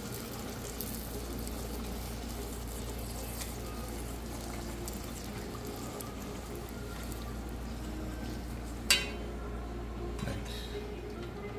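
Bake dough frying in hot oil in a metal pot, the oil sizzling steadily as a metal spoon ladles oil over the dough. There is one sharp clink of the spoon against the pot about nine seconds in.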